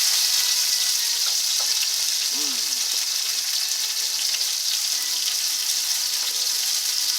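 Hamburger meat sizzling in a frying pan: a steady hiss.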